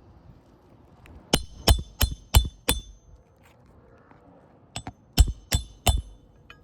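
Hammer blows on a steel roof snake, driving roofing nails back in under a shingle tab. There are five quick strikes at about three a second, a pause, then a light tap and three more strikes, each with a short metallic ring.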